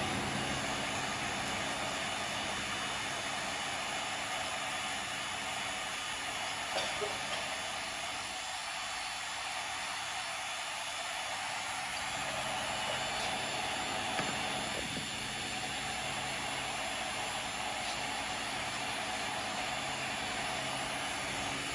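Steady hissing noise over a low mechanical hum, with a couple of faint knocks.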